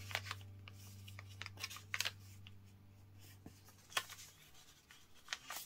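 Sheet of printer paper rustling and crackling as hands fold it and press the crease flat, in short scattered bursts with a few sharper crinkles.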